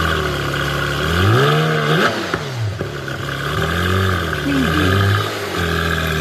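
Car engine revving over a steady idle. The pitch climbs sharply about a second in, peaks with a short clatter, and falls away, then rises and falls again around four to five seconds.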